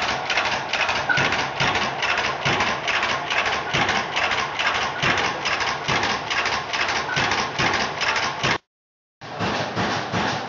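Circa-1918 Blaisdell 65 HP four-stroke engine-compressor, a horizontal single-cylinder machine, running with an even, rhythmic clatter of about three beats a second. The sound breaks off for half a second near the end, then goes on the same.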